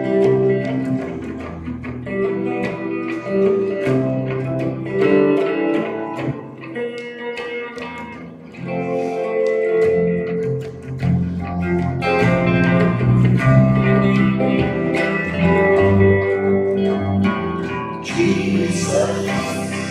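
Live band playing an instrumental passage: a hollow-body archtop electric guitar picking notes over electric bass.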